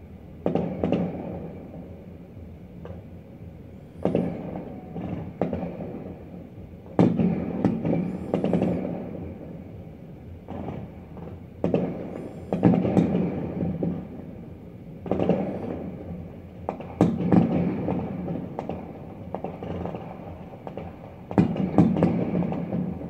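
Distant fireworks shells bursting, about seven muffled booms every three to four seconds, each trailing off in a rumble for a second or two, with faint crackling after some bursts.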